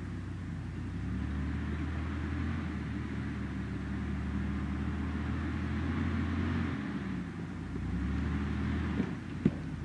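Toyota 4Runner engine running at low revs as the truck crawls over rocks, a steady low hum that shifts pitch a few times. Near the end come two sharp knocks, the second the loudest sound.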